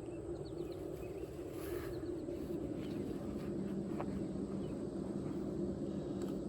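Outdoor background: a steady low hum with a few faint bird chirps near the start and a small click about four seconds in.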